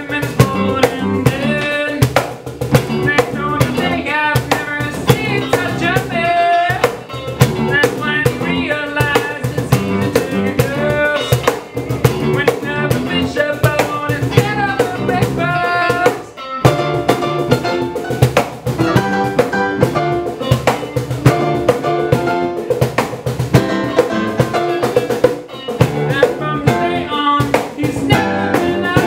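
Acoustic band playing a song: strummed acoustic guitars over a steady drum beat, with a melody line on top. The band stops for a brief moment just past the middle.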